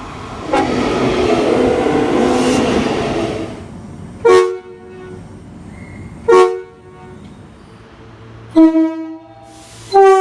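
Train horn sounding three short blasts about two seconds apart, each a chord of several notes, with a longer blast beginning near the end. Before the blasts there are about three seconds of loud rushing noise.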